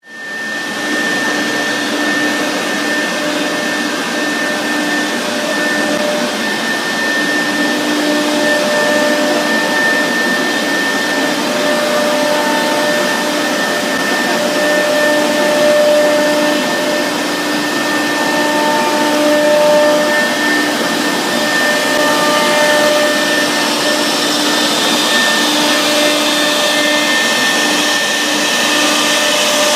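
1325 CNC router with an HSD 6 kW air-cooled spindle running while carving a wave-pattern board: a steady high whine over a rushing noise, starting suddenly. A few fainter tones come and go.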